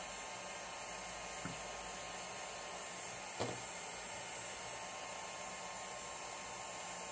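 Steady airy hiss with a faint high whine, the airflow of a hot-air rework tool heating a router circuit board to desolder its power switch. A light tick about one and a half seconds in and a sharper click a couple of seconds later.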